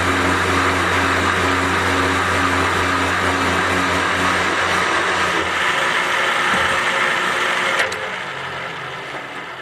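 Winona valve seat and guide machine running, its cutter boring a valve-seat pocket in the cast-iron Willys L-134 block: a steady motor hum under a high, hissing cutting noise. The low hum drops away about five seconds in, and the cutting noise stops abruptly near the end as the cutter comes out of the pocket and the machine runs down.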